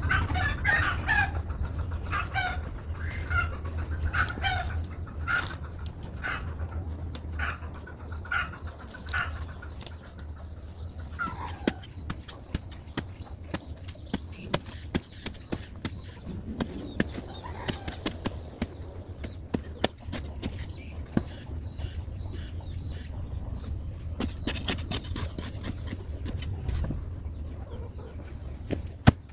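Chickens clucking in short calls over the first ten seconds or so. After that, a short-handled hoe digging into dry soil with many sharp, irregular strikes.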